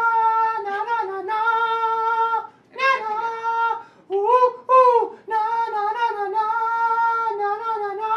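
A high female voice singing wordless, long held notes at nearly one pitch, broken by short pauses, with a few sliding notes partway through.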